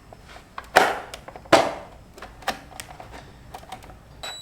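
Plastic motorcycle tail fairing clicking and knocking as it is stretched over and fitted: two sharper snaps about a second and a second and a half in, with scattered light ticks.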